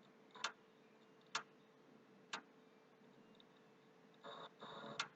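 Sharp single clicks from a PlayStation 3 near its hard drive, three about a second apart, then a short soft rustle and one more click near the end. The console is stuck restarting slowly, and the owner suspects the hard drive is failing.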